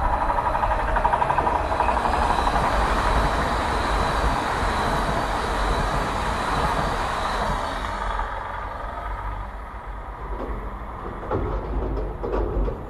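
TCDD HT65000 high-speed electric trainset passing at about 108 km/h: a loud rush of wheel and air noise with a thin steady whine through the middle of the pass, fading away about eight seconds in. A few short knocks follow near the end.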